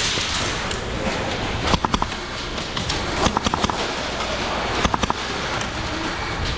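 Airsoft gunfire: three short bursts of rapid sharp pops, about two, three-and-a-half and five seconds in, over a steady rustling haze.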